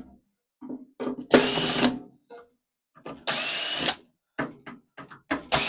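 Power drill-driver spinning in short bursts of about two-thirds of a second, three times, as screws are backed out of a microwave's metal casing. Small clicks and knocks of metal parts come between the bursts.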